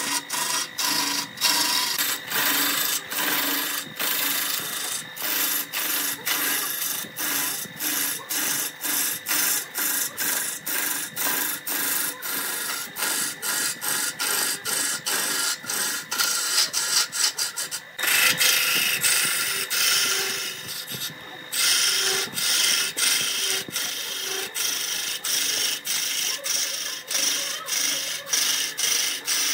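A turning tool on a wood lathe cuts a spinning glued-up laminated wood cylinder, with a steady rasping cut. The cut breaks off briefly a couple of times a second for the first part, then runs more continuously and louder from about two-thirds of the way through, over a faint steady hum.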